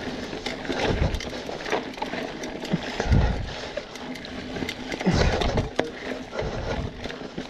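Hardtail mountain bike riding over dirt singletrack: tyre noise on dirt with quick clicks and rattles from the bike, and a few low thumps over bumps.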